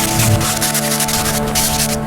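Background music with sustained tones, with the rasping strokes of sanding on the boat's hull heard through it, strongest at the start and again near the end.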